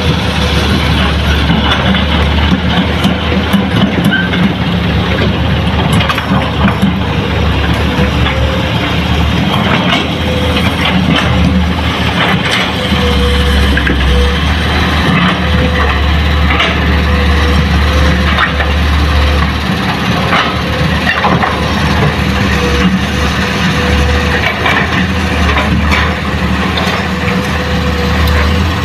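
Diesel engine of a Hitachi excavator running steadily as it digs and loads soil into a dump truck: a strong low drone, with scattered knocks as soil and rock drop into the truck bed.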